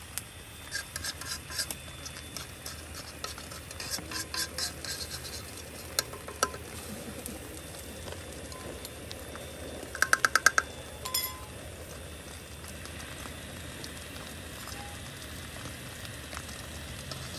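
A metal spoon scraping and clinking against a steel wok and a bowl while beaten egg fries with a steady low sizzle over a portable gas stove. Just after ten seconds in comes a quick run of about six ringing spoon taps.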